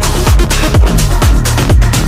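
Electronic dance music with a steady kick-drum beat under sustained synth tones.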